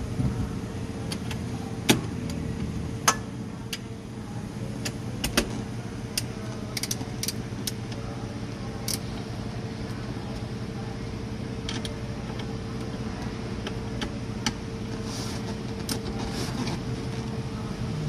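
Scattered metallic clicks and clinks of small shifter parts and tools being handled and fitted, over a steady electrical hum.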